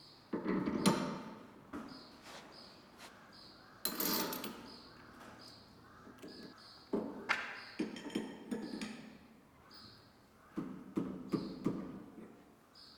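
Irregular metallic clanks and knocks of hand work on a spindle moulder's milling head as its cutter knives are refitted. They come in clusters, the loudest about half a second in and again around four, seven and eleven seconds.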